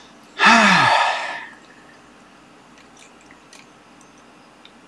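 A man's loud, breathy, wordless vocal burst lasting about a second, dropping in pitch as it fades. It follows a short hissing breath in.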